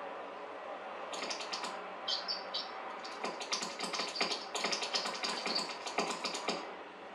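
Several runs of rapid, high-pitched chirps and ticks, bird-like twittering in quick bursts, starting about a second in and stopping shortly before the end.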